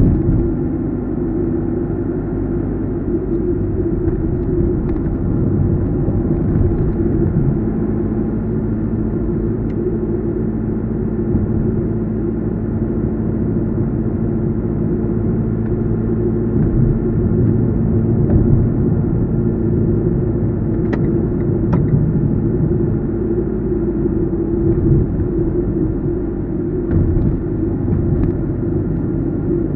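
A car driving at a steady pace: continuous low rumble of engine and road noise, with two faint clicks about two-thirds of the way through.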